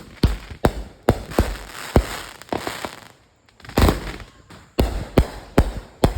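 Consumer fireworks or firecrackers going off: a rapid, irregular run of a dozen or so sharp bangs, with a short pause about three seconds in, stopping near the end.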